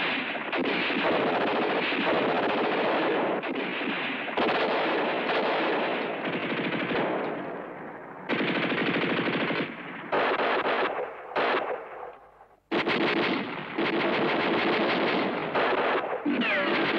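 Long bursts of rapid machine-gun fire, the staged gunfire of a war-film soundtrack. The fire breaks off briefly several times about ten to twelve seconds in, then resumes without a break, with a few falling whines near the end.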